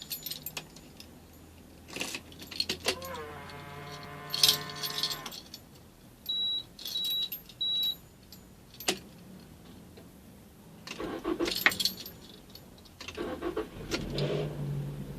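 Car keys jangling and clicking in the ignition of a 2004 Nissan X-Trail 2.0, with a humming tone for about two seconds and then three short high beeps from the dashboard. Near the end the engine is started from cold and settles into a steady low running hum.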